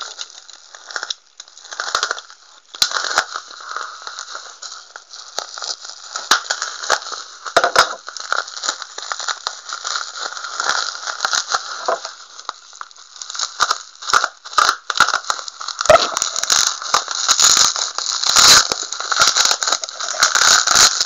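Plastic bubble wrap crinkling and rustling as hands work it open, with scattered sharp clicks and snaps. It gets busier and louder in the last few seconds.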